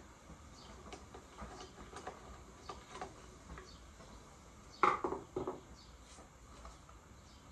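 Light clicks and scrapes of a screwdriver working on the metal parts of an old pellet gun on a wooden workbench, with a louder clatter of two or three knocks about five seconds in as parts are handled.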